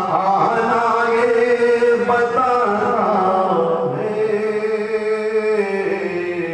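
A man's voice chanting a devotional poem into a microphone in a sung, melodic style, holding long steady notes.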